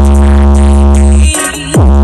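Loud electronic music with a deep, sustained bass note under steady synth tones; about 1.3 s in it breaks off briefly, with a quick falling sweep before the bass comes back.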